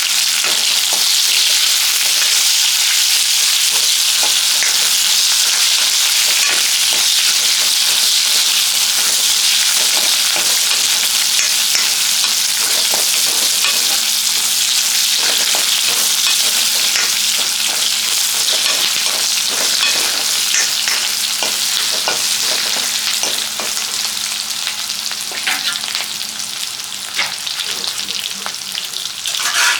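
Onion and curry vadagam sautéing in hot oil in a kadai: a steady loud sizzle with frequent clicks and scrapes of a spatula stirring. The sizzle eases off somewhat near the end.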